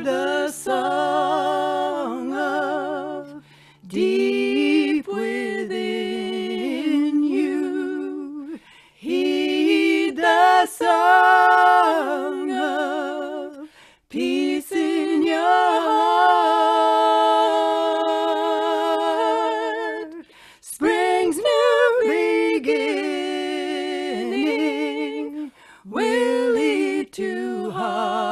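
Voices singing a slow song unaccompanied in harmony. Held notes with vibrato come in phrases of about five seconds, each followed by a short breath pause.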